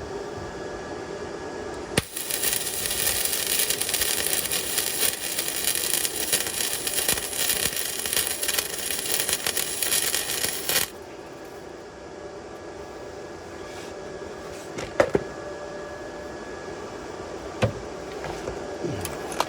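Electric arc welder tack-welding an exhaust pipe joint to hold it in place: a steady, dense crackle of the arc that starts about two seconds in and cuts off suddenly after about nine seconds, over a steady machine hum. A couple of sharp metallic clicks follow near the end.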